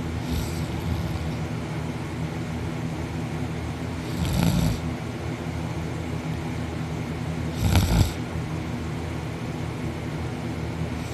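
A sleeping man snoring through a wide-open mouth while lying on his back: three rasping snores about three and a half seconds apart, the first faint and the next two loud. A steady low hum runs underneath.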